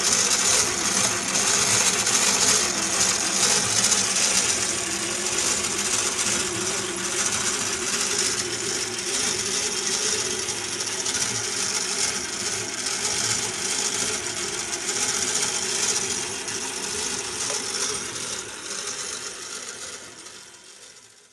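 Merkur construction-set model of a single engine cylinder running: its metal strips, bolts, crank, connecting rod and valve gear rattle and clatter continuously over a steady hum from the small motor that drives it. The sound fades out over the last few seconds.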